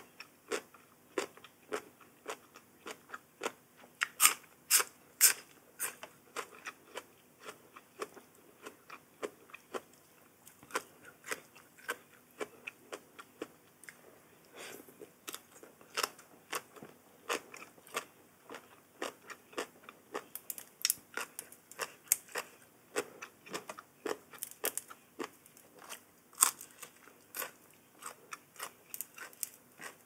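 Close-miked chewing and crunching of food: a steady run of short, crisp crunches, about two or three a second, with a few louder bites about four and five seconds in and again near the end.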